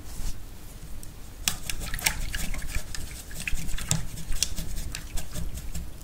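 A paintbrush being cleaned: rinsed and swirled in a pot of water and wiped on a paper towel, with many irregular light taps and clicks.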